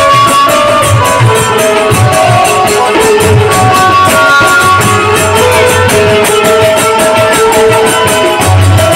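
Instrumental interlude of Bhojpuri folk music: a harmonium and keyboard melody of held notes over a tabla and dholak beat, with small hand cymbals clinking in quick, steady time.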